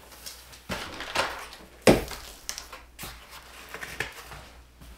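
A large cardboard shipping box being opened and its lid lifted off: irregular scraping and rustling of cardboard with scattered knocks, the loudest a sharp knock about two seconds in.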